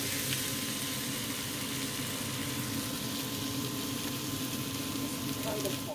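Breaded schnitzels frying in oil in a nonstick pan, a steady sizzle.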